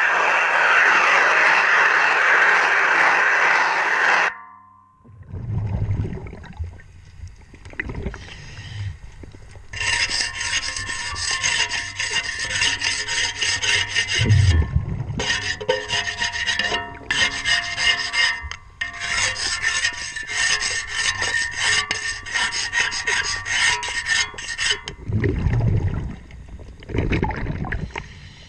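Rapid, rasping scraping of a cleaning tool on a boat propeller, recorded underwater during in-water prop cleaning, in long runs with short breaks. It opens with a loud steady rush that cuts off about four seconds in, and low rumbling swells come and go a few times.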